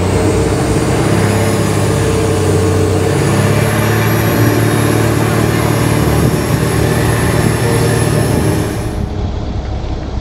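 Boat engine running steadily at speed, with water rushing past the hull. Near the end the engine sound drops away.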